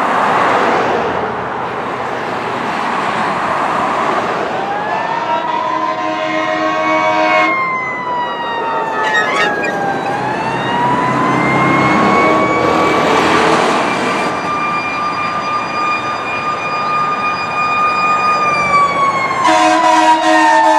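Fire truck sirens: a siren wailing slowly up and down, with a quick warbling siren sweep about halfway through. A truck air horn blasts for a couple of seconds around a quarter of the way in and again near the end.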